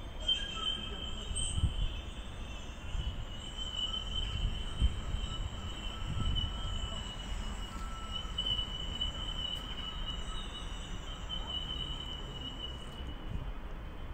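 A steady high-pitched whine, wavering slightly in pitch, over a low outdoor rumble with a few soft thumps.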